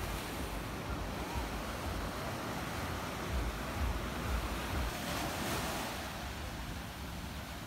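Small waves breaking and washing up a sandy beach, a steady surf hiss that swells as a wave runs in about five seconds in. Gusts of wind buffet the microphone with a low rumble in the middle.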